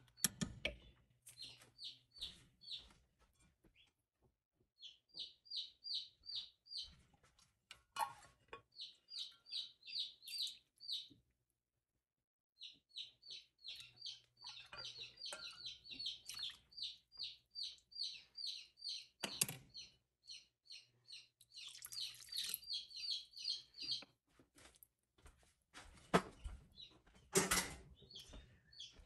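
A bird chirping in quick runs of short, high, evenly spaced chirps, about four or five a second, with pauses between the runs. A few sharp clicks sound now and then.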